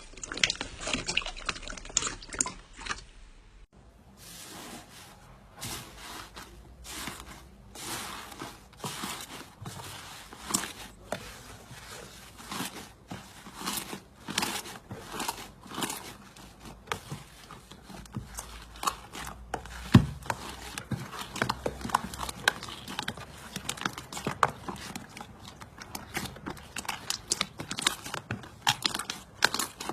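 Slime being squeezed, stretched and poked by hand, giving a dense run of wet clicks, pops and crackles, with one louder thump about two-thirds of the way through.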